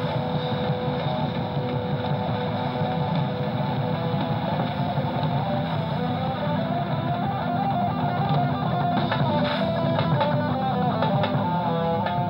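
Background instrumental music with a plucked guitar melody over a steady accompaniment.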